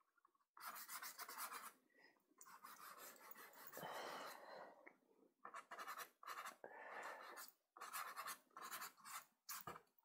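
Faint scratching of a soft pastel stick dragged across Sand Pastelmat in a run of short strokes, each a second or so long, with brief pauses between.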